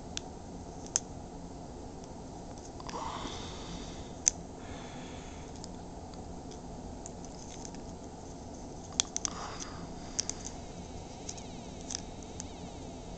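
Light clicks and taps of metal snap-on wire connectors handled against a plastic cup of water. Near the end a faint high-pitched tone from the electronics kit's water detection alarm begins as the second wire goes into the water and closes the circuit.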